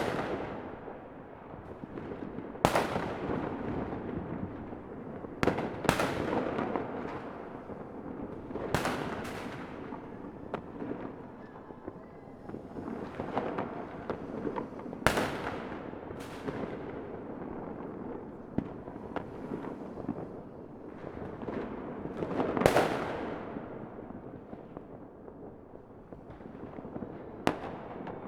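Fireworks going off: sharp bangs every few seconds over a continuous crackling and rumbling of further bursts.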